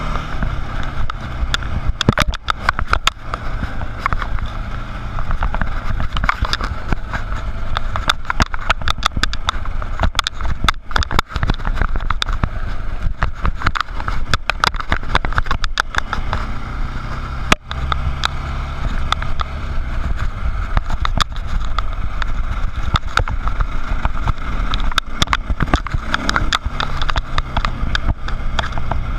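Dirt bike engine running under way on a rough dirt trail, heard close up from the bike, with many sharp clicks and knocks over the engine sound throughout.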